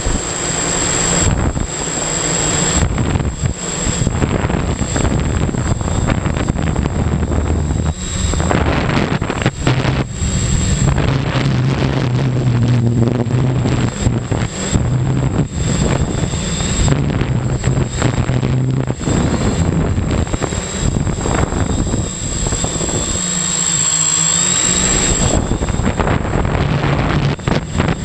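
An octocopter's eight electric motors and propellers running in flight, heard close up from a camera on the airframe: a loud, steady hum whose pitch shifts up and down as the motors change speed, over a constant high whine. Wind rushes over the microphone.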